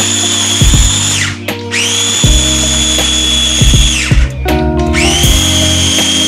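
Ninja mini food chopper run in pulses by pressing down on its top: a high motor whine that stops about a second in, runs again for a couple of seconds, and starts once more near the end.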